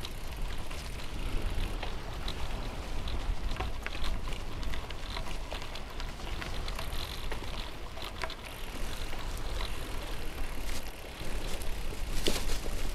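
Road bike tyres rolling over a dirt and gravel track, a steady crunch with many small stones popping and ticking under the tyres over a low steady rumble. A louder clatter comes near the end.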